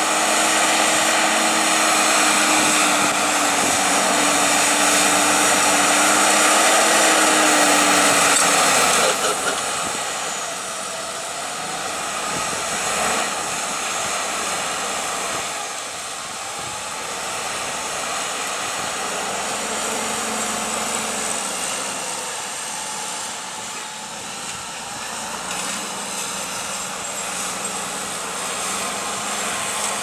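Fendt 936 Vario and Fendt 714 Vario tractors, chained in tandem and pulling a deep plough, with their diesel engines running steadily under heavy load and a high whine over the engine note. The sound is loudest for about the first nine seconds, then drops to a lower, steadier engine note.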